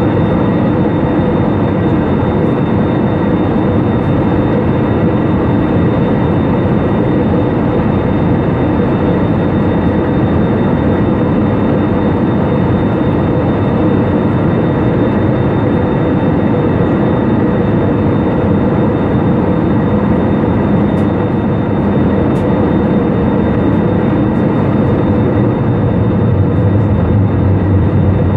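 Steady cabin noise of an Airbus jet airliner in flight, heard inside the cabin by a window over the wing: the turbofan engines and rushing air make an even noise with a few faint steady tones in it. A low hum grows stronger near the end.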